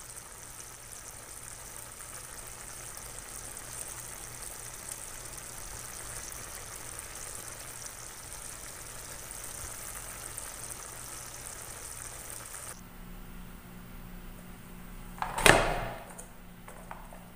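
Chicken feet adobo simmering in a pan, a steady hissy bubbling. It cuts off sharply about two-thirds of the way through. After that comes a low hum and one loud knock near the end, as an upturned aluminium pot is pressed down onto a bamboo tray to turn out rice.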